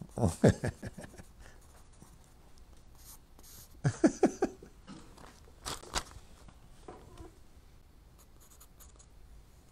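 Pencil scratching on paper in quick clusters of strokes, one group near the start and another about four seconds in, with a single sharp stroke around six seconds and faint quiet between.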